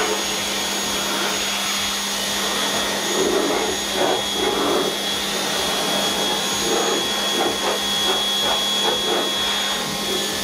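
Low-pressure power washer running steadily with a constant motor hum, its water jet hissing against the underside of a car's hood; the spray noise gets uneven and louder through the middle stretch.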